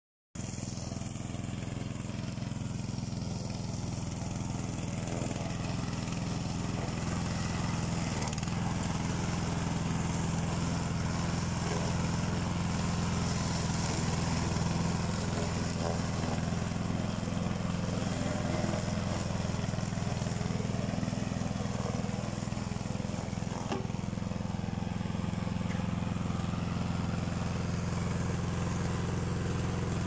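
Small petrol engine of a remote-controlled wheeled brush mower running steadily as the machine drives and mows through long grass.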